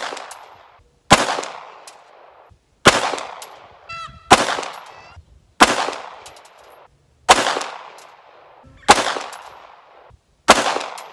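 Springfield XD-M pistol fired in slow aimed shots, seven of them about one and a half seconds apart, each a sharp crack followed by a fading echo.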